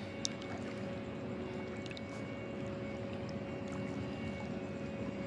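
Steady wash of moving floodwater, with a faint steady hum underneath and a small click just after the start.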